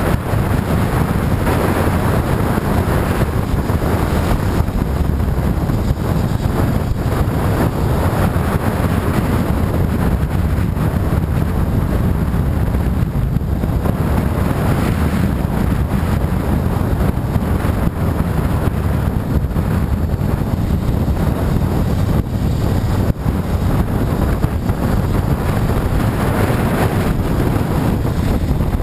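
Motorcycle riding at speed: steady wind rush over the camera microphone mixed with the running noise of the bike and road.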